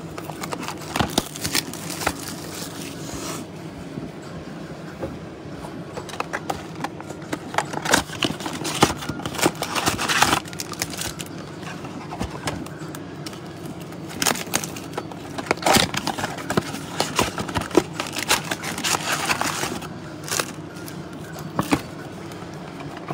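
Trading-card blaster boxes being opened by hand: irregular scraping, tearing and crackling of cardboard and wrapping, with several louder stretches of tearing, over a steady low hum.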